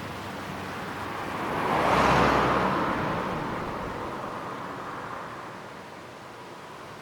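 A car passing by: its tyre and engine noise swells to a peak about two seconds in, then fades away over the next few seconds.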